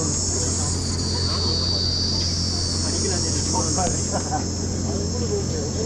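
A steady, high-pitched chorus of insects, swelling a little about a second or two in, over faint background voices and a low steady hum.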